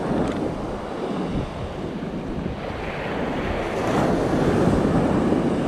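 Waves breaking and washing up on a sandy shore, with wind buffeting the microphone; the surf swells louder about four seconds in.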